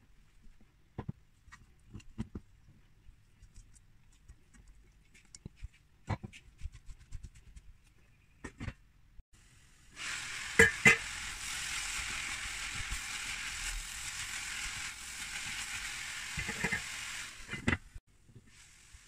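Grated beetroot cooking in a stainless-steel pot: a few light scattered taps, then a steady sizzling hiss about ten seconds in that stops abruptly near the end. Two sharp metal clinks of the pot lid come just after the sizzle starts, and more knocks come just before it stops.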